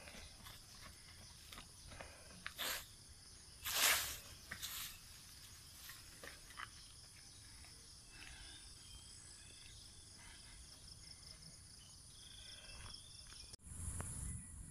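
Outdoor ambience with a steady high-pitched insect buzz, under scattered footsteps and a few louder scuffs or rustles, the loudest about four seconds in. The background changes abruptly near the end.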